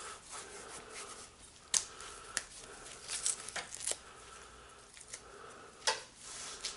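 Insulated copper wires rustling and scraping as they are pulled out of the metal armour of BX cable, with a few sharp clicks and taps scattered through.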